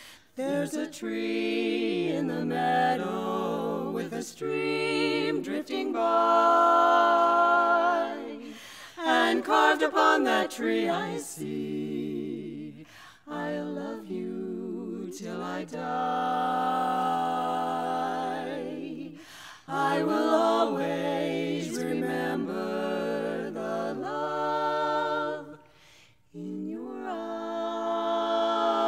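Women's barbershop quartet singing a cappella in four-part harmony, phrase after phrase with short breaks between them.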